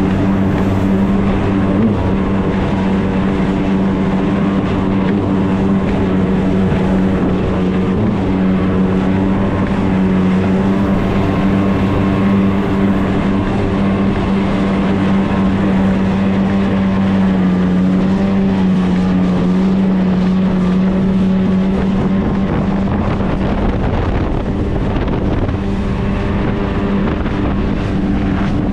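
Jet ski engine running steadily at an even pitch, with wind on the microphone; the tone turns a little rougher near the end.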